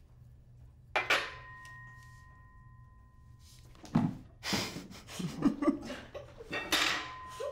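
A single strike on a drinking glass, which rings on with a clear tone for about three seconds. Later come several clatters of tableware and short wordless voice sounds, with another brief ring near the end.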